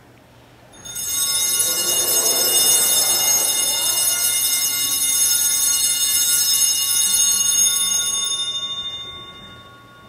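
Altar bells ringing for about seven seconds, a shimmering cluster of high tones that then fades away: the bells rung at the elevation of the chalice after the consecration.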